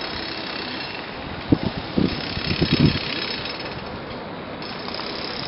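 Steady hiss of outdoor background noise on a camera microphone, with a short run of low, irregular thuds on the microphone between about one and a half and three seconds in.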